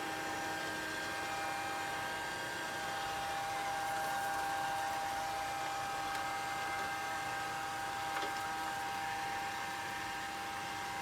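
Grundig VCR 2131 robot vacuum cleaner running steadily, its motor giving an even hiss with a constant whine.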